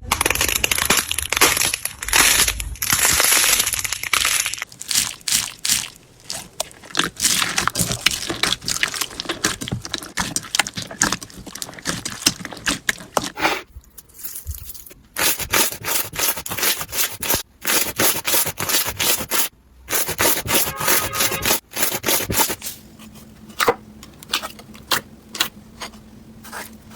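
Slime being squeezed and poked, giving dense crackling and popping clicks. There are breaks about halfway through and again near the end, where one clip cuts to the next.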